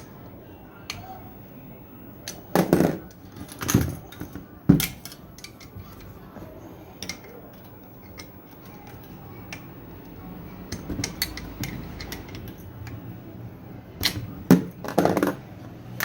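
Scattered knocks and metallic clinks from tools and parts while a twin-tub washing machine's spin-dryer motor is tapped and reassembled, with clusters of louder knocks around a third of the way in and again near the end.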